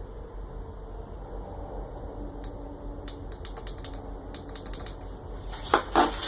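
Small hardware being handled during 3D-printer assembly: a click, then a quick run of small clicks and rattles, and two or three louder knocks near the end.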